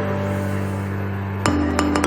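Background music: sustained chords with light percussive ticks, the chord changing about one and a half seconds in.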